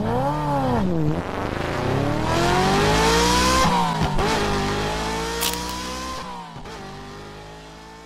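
Engine accelerating through the gears: its pitch climbs, falls back at a shift about 4 seconds in and again about 6.5 seconds in, and it fades away toward the end.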